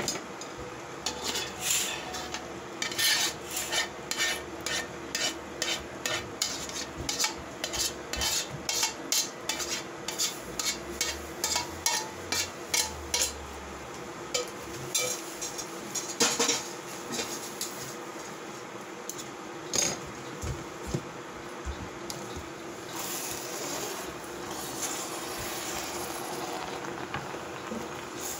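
A cooking utensil clacking and scraping against a pan as noodles are stirred and tossed, about two or three strikes a second through the first half with a louder knock near the middle, then a steady sizzle of frying.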